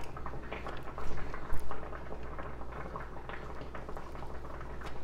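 Plastic knife cutting smoked sausage into chunks on a cutting mat, with small taps and a few louder knocks a second or so in as the blade meets the mat. A pot of lasagna noodles bubbles at a boil underneath.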